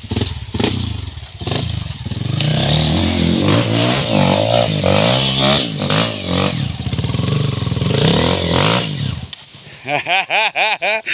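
An engine running with its pitch rising and falling for about nine seconds, then cutting off, with voices over it; a person speaks loudly near the end.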